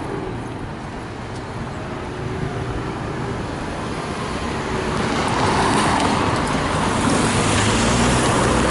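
Road traffic: cars driving past on the road, with the noise swelling as a closer vehicle passes about halfway through.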